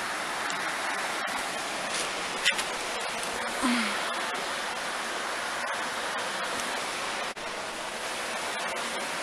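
River rapids roaring below the bridge: a steady, even rush of fast-flowing water.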